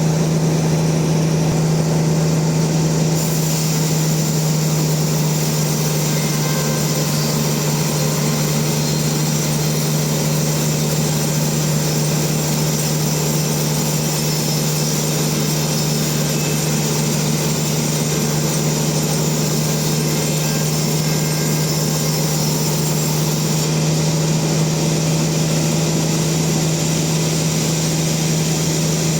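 Sawmill machinery running steadily, with a constant low hum and a broad mechanical noise over it.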